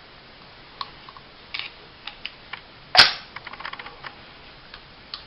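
Metal parts of a compact 1911-style pistol being fitted together as the slide goes onto the frame: light clicks, then one sharp, loud metallic clack about three seconds in, followed by a few more clicks.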